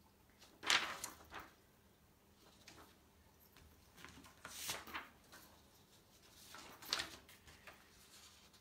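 Sheets of printer paper rustling as they are handled and leafed through, in a few brief swishes, the loudest about a second in.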